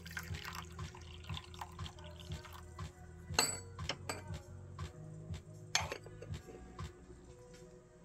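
Tea being poured into small teaware, a light trickle with small clinks, and two sharp clinks of teaware a few seconds in. Background music plays underneath.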